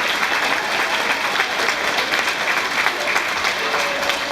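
Audience applauding: many hands clapping steadily and unevenly, not in a beat.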